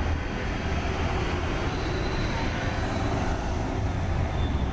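Steady street traffic: vehicle engines running with a constant low hum.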